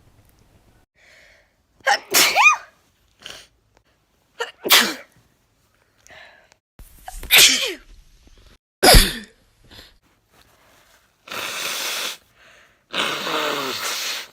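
A person's allergy sneezes: four sharp sneezes about two to three seconds apart, each after a short inhale. Near the end come two longer, steady blows of the nose.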